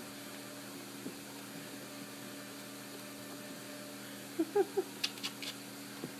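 Steady low room hum as a cat bats at a hanging yarn ball. About four and a half seconds in come three short squeaky notes, then a few quick clicking taps.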